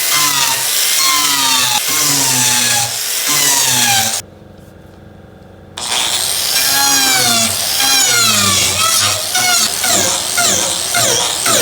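An angle grinder with a wood-carving disc cutting into wood. The motor's whine repeatedly drops and rises in pitch as it bogs under load and recovers, with faster swings later on. A little past four seconds in it gives way for about a second and a half to a quieter steady hum.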